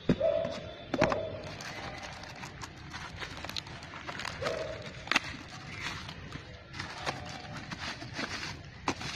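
Brown paper and packing tape being torn open and crumpled by hand from a small parcel: irregular crackling rustles with a few sharp clicks. Brief low hums come twice in the first second or so, and once more a little before the halfway mark.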